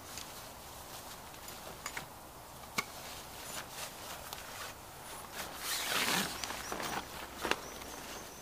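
Handling noise from a fabric cover and its straps on a car roof rack: scattered small clicks and rustles, with one longer rustle of fabric about six seconds in.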